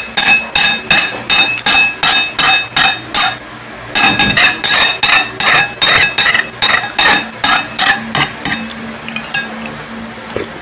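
Rapid, evenly spaced ringing taps on a dish, about three a second, in two runs with a short break a few seconds in, then a few lighter taps near the end.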